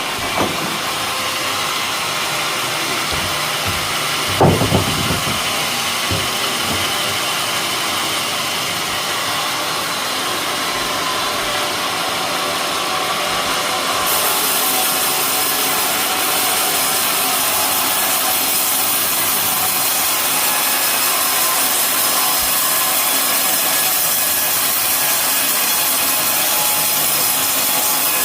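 Homemade sawmill sawing lengthwise through an old green coconut palm trunk: a steady, loud sawing noise with the machine's motor running under it. There is a short knock about four seconds in, and the cut gets brighter and harsher about halfway through.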